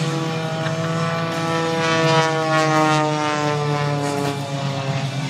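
Propeller-driven aerobatic plane's engine droning, its pitch sliding slowly downward, over a steady low hum.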